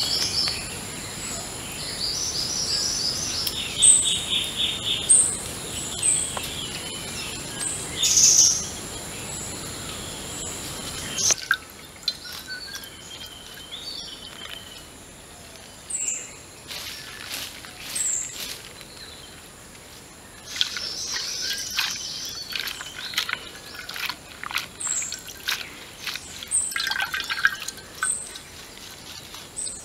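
Forest birds calling with repeated short high chirps and quick trills, over a steady high-pitched whine. From about a third of the way in come crackling snaps of fresh leafy stems being torn by hand.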